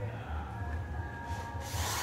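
Cordless drill starting up against the wooden door frame, setting in with a loud whir about one and a half seconds in and running on, its pitch shifting as it works.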